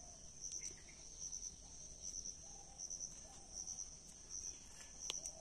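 Crickets chirping faintly, a high, steady trill that pulses in short groups about every two-thirds of a second, with a couple of faint clicks.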